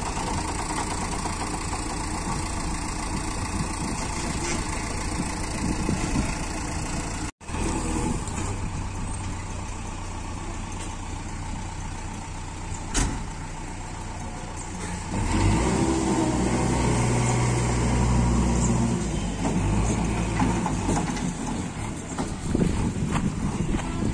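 Diesel engines of a backhoe loader and a tractor running steadily, with a brief dropout about seven seconds in and a sharp click near the middle. From about fifteen seconds in an engine runs louder and deeper for several seconds, then eases back.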